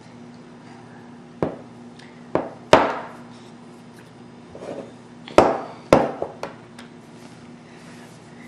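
Kitchen items knocking and being set down: a string of sharp, uneven knocks, the loudest about three seconds in and again a little past halfway.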